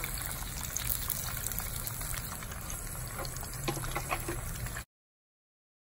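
Breaded tilapia pieces deep-frying in hot oil in a steel pan: a steady sizzling and bubbling that cuts off suddenly about five seconds in.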